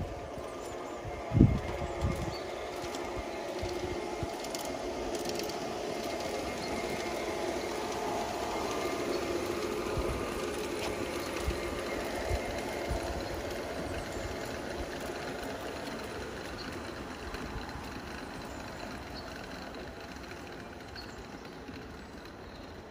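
G-scale model train running along the garden track, its wheels and motors growing louder to a peak about nine seconds in and then fading away as it passes. A brief low thump comes about a second and a half in.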